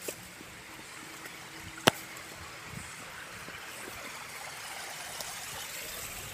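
Shallow rocky creek running over stones in a steady rush, with a single sharp click about two seconds in.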